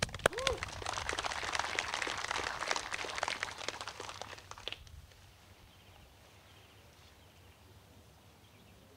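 A small crowd applauding for about five seconds, then the clapping stops and it goes nearly quiet, with faint bird chirps.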